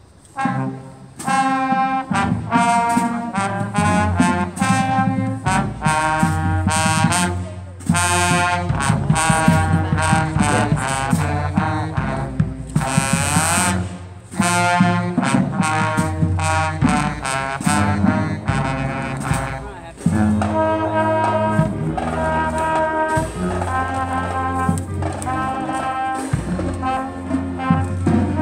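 Marching band playing a brass-led piece with trombones and trumpets to the fore and drums underneath, starting about a second in. Near the middle the brass slides up in a rising smear.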